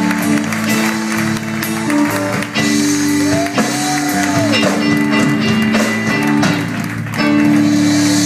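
A live band playing an instrumental passage of a song with electric guitars and drums and held chords, and no singing.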